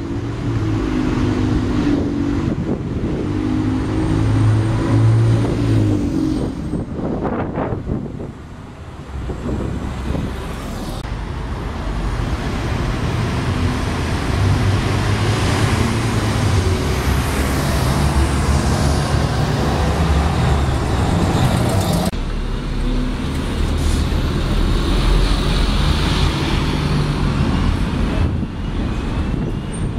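City street traffic: buses, cars and vans driving past with engines running and tyre noise, changing abruptly about two-thirds of the way through.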